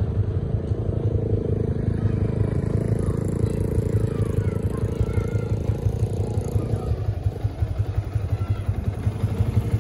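Small motorcycle engine running steadily under way, its quick, even firing pulses low in pitch. A rushing layer over it fades out about seven seconds in.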